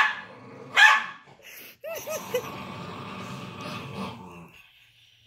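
Small dog barking sharply twice, then growling for a couple of seconds with a few short whiny yips at the start of the growl, while squaring off with a bigger dog in play.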